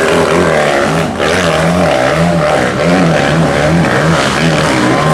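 Dirt bike engine climbing a steep dirt hill, its revs rising and falling over and over about twice a second as the rider works the throttle.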